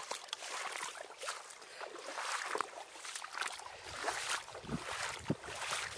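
Heavy rain falling on a wet path: an even hiss broken by irregular louder splashes and hits.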